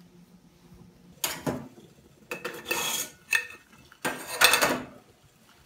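A titanium pot lid lifted off the pot and set down on the counter, giving a few metallic clinks and scrapes with a short ring.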